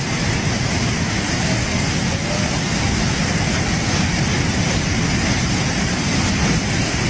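Floodwater rushing in a torrent: a loud, steady, dense rush with a heavy low rumble and no pauses.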